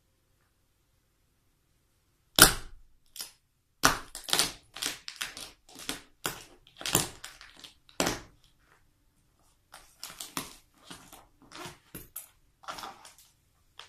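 Toy car crushed under a high-heeled shoe: a loud crack about two and a half seconds in, then a run of crunching and snapping, thinning to quieter crackling near the end.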